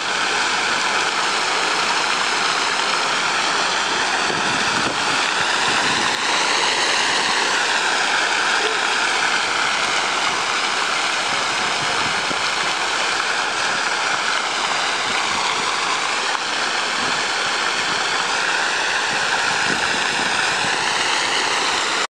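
Fountain jets splashing into a stone basin: a steady, unbroken rush of falling water.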